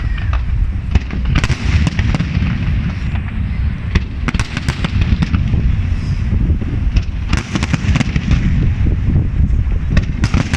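Aerial fireworks display: shells bursting one after another in a continuous low rumble, with clusters of sharp crackling pops about a second and a half in, around four to five seconds in, near seven and a half seconds, and again near the end.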